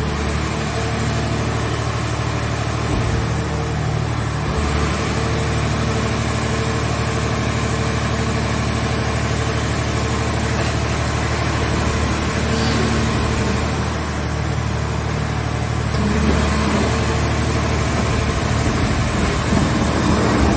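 Hydraulic car-body baler's power unit running steadily, a low engine hum with a high thin whine over it. The whine sags in pitch briefly about four seconds in, and again for a couple of seconds later on.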